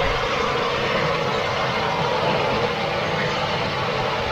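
A large batch of fish balls and pea eggplant stir-frying in a wok over a gas burner: a steady burner roar with continuous sizzling.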